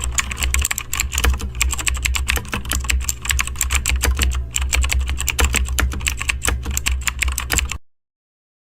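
Rapid, irregular clicking, like typing, over a steady low hum; it cuts off abruptly near the end.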